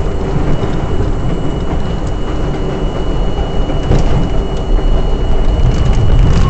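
Inside an R42 subway car running along the track: a loud, steady rumble of wheels on rail with a few sharp clicks.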